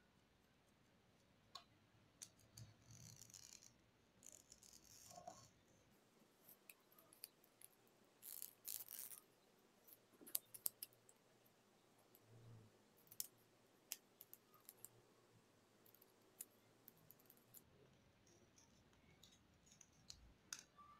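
Faint handling sounds of a plastic drinking straw and paper: scattered small clicks and taps with a few short rustles, the strongest about eight seconds in.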